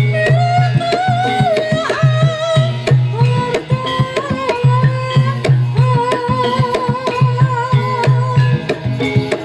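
Live Javanese gamelan music: kendang hand drums beat a fast, steady rhythm under long held, wavering melodic notes.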